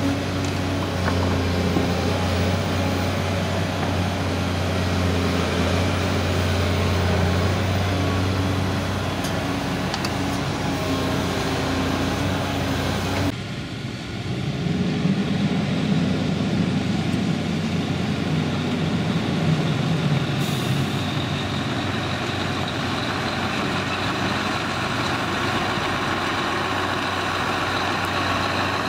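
Volvo EW160D wheeled excavator's diesel engine and hydraulics running steadily under load. About 13 s in, a Scania R560 tipper truck's engine takes over, pulling as the truck drives off.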